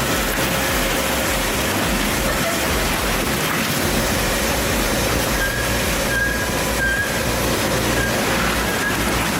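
Heavy industrial shredder running under load, a steady loud grinding rumble with short high squeaks now and then.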